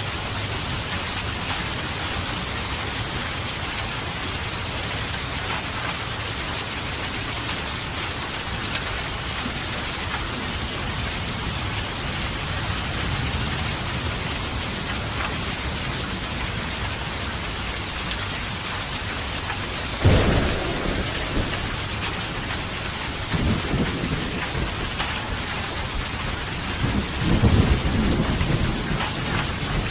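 Steady heavy rain falling, with a sudden crack of thunder about two-thirds of the way in, followed by low rolling rumbles of thunder near the end.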